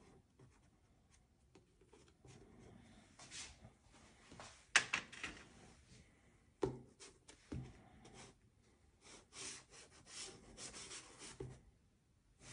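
Soft pastel stick scratching and rubbing across colored paper in faint short strokes, with a sharper stroke about five seconds in. A couple of soft knocks come around seven seconds.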